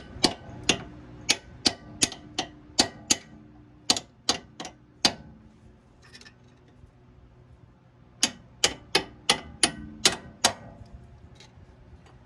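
Sharp metal-on-metal taps and knocks, each ringing briefly, about two or three a second in two runs with a pause between, as the strut's lower mounting hole is worked into line with the knuckle so the bolt can go through.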